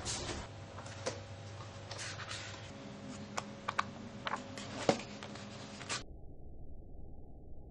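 Scattered sharp clicks and taps over a faint steady room hum, bunching into a quick run about three and a half to five seconds in as the pages of a glossy paperback guidebook are flipped. From about six seconds in, only a dull, muffled hum.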